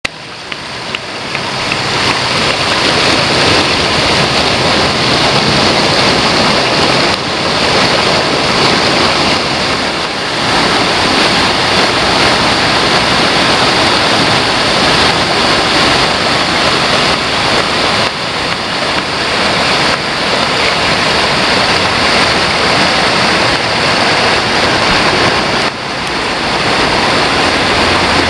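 River water rushing over boulders through shallow rapids, a loud steady rush with a few brief dips.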